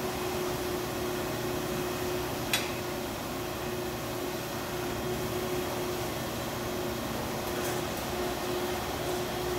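A steady mechanical hum with one held tone. About two and a half seconds in comes a single sharp metallic click as the band saw's vise is worked by hand.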